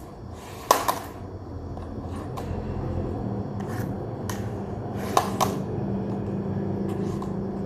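A sharp knock less than a second in, then a handful of lighter clicks and knocks spaced a second or so apart, over a steady low hum that slowly grows louder.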